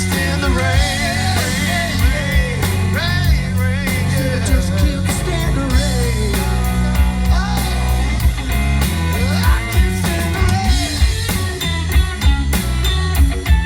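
Rock band playing live with no lyrics sung: drums keeping a steady beat, a heavy bass line, and a lead melody line that bends up and down in pitch.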